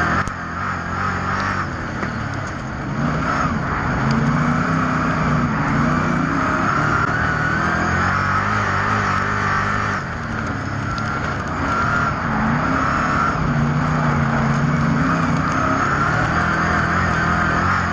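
Speedway race car engines running hard around an oval track. Their pitch rises and falls repeatedly as the cars lift off and power through the corners.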